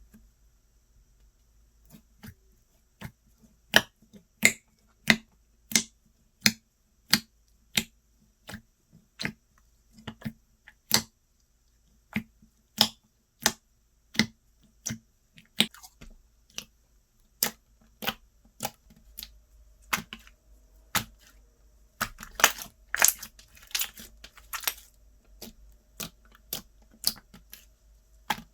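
Slime being pressed and worked by hand, giving sharp wet clicks and pops in an even rhythm of about three every two seconds. Near the end there is a short stretch of denser crackling.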